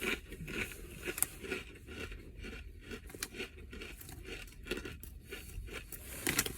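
A mouthful of crunchy potato chips being chewed, with irregular crackles that are louder near the end.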